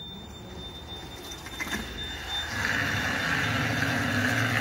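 STILL RX60 electric forklift driving and turning on a concrete floor. A thin steady high tone runs until about halfway, then the truck's running sound grows louder with a low hum and a higher whine.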